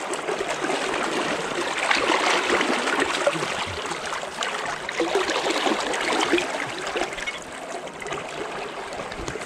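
Fast, shallow river current running steadily, with a hooked chub splashing at the surface as it is landed.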